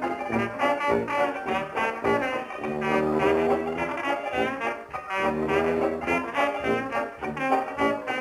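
Background music soundtrack led by brass instruments, playing in a jazzy rhythm of short notes with a few longer held notes in the middle.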